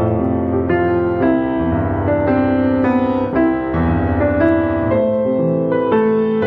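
Slow, soft piano music: sustained notes and chords changing about once a second.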